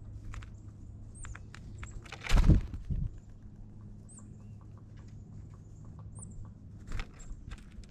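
Birds at a feeder: scattered light pecking and tapping clicks with faint, short, high chirps, and louder thumps about two seconds in and again near the end.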